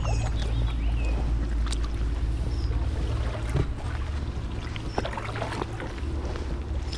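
Water washing along the hull of an inflatable drop-stitch kayak paddled in tandem, with paddle strokes and a steady low rumble. A few faint bird chirps come through now and then.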